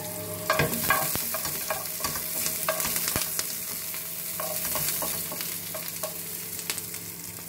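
Oil sizzling with a steady hiss in a kawali (wok-style frying pan) as garlic sautés, while a spatula stirs and knocks against the pan in scattered clacks.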